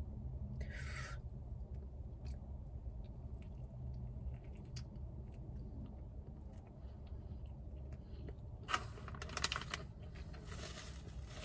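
Quiet eating sounds from a crispy fried chicken sandwich: soft crunching and chewing with faint crackly rustling, and a louder burst of crunching and rustling about nine seconds in, over a low steady hum.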